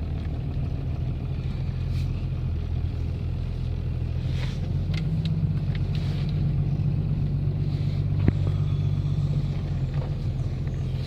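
Old Dodge pickup's engine running steadily, its pitch rising slightly about five seconds in. A single sharp click a little after eight seconds.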